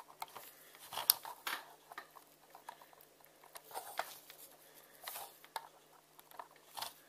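Fingers and fingernails tapping, scraping and clicking on the plastic of a small toy police box, picking at its moulded phone-box door panel. A few faint separate clicks and scratches.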